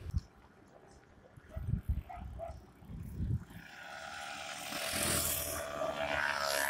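A few short low thumps, then a passing motor vehicle whose engine and road noise swell over the last few seconds.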